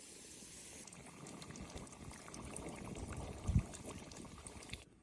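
Oil bubbling and sizzling around potato fries frying in a pan, a faint dense crackle, with one low thump about three and a half seconds in; the sound cuts off just before the end.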